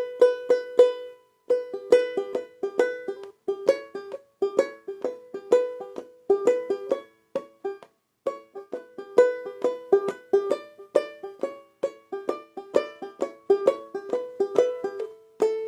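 Banjolele tuned G-A-E-A, played clawhammer style: a run of plucked notes in an even eighth-note rhythm, picking out a simple melody, with short breaks about a second in and about halfway through.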